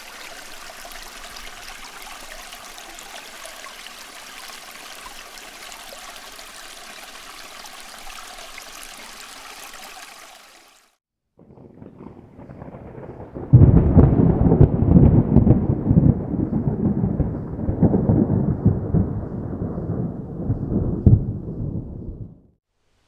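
A steady, even hiss for about ten seconds, then, after a brief gap, a loud rolling rumble of thunder that swells, crackles and runs for about nine seconds before cutting off.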